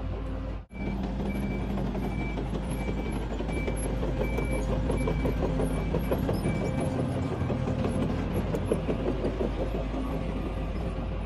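Engine of a tracked SANY road-repair machine running steadily, with its high-pitched warning alarm beeping about twice a second through most of it.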